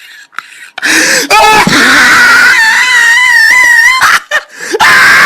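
A high-pitched, wavering wheezy squeal of a laugh, starting with a loud noisy burst about a second in and held for about three seconds before cutting off; another loud burst of noise comes near the end.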